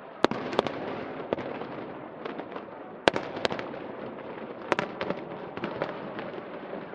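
Aerial fireworks going off in irregular sharp bangs, a couple of them close together, over a constant background hubbub, heard from across a river at a distance.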